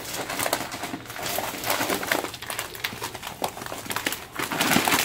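Heavy bags of feed corn being lifted and shifted, their sacks rustling and crinkling in irregular bursts that grow louder toward the end.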